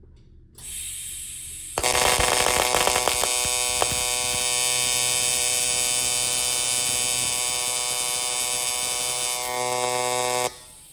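PrimeWeld 325X inverter TIG welder's AC arc on a 3/32 tungsten, balance set fully to electrode positive, balling the tungsten tip. The arc starts with a faint hiss soon after the start, then swells about a second later into a loud, steady electric buzz as the heat comes on, and cuts off suddenly near the end when the pedal is let off.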